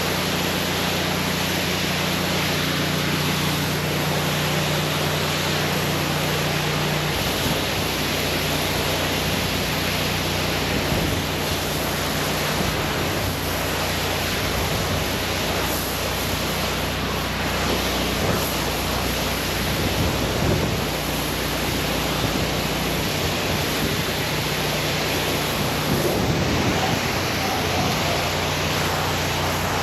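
Pressure washer running: a steady engine hum under the loud hiss of the high-pressure water spray. The hum's lowest tone drops out about seven seconds in and returns near the end.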